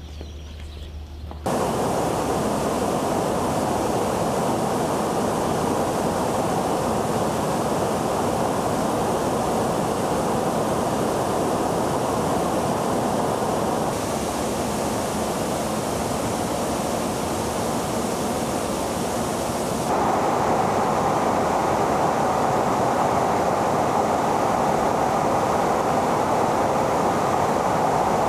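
A low steady hum, then about a second and a half in a sudden switch to the steady rushing noise of aircraft in flight, airflow and jet engines together. The noise shifts in tone twice, about 14 and 20 seconds in, growing a little louder at the second change.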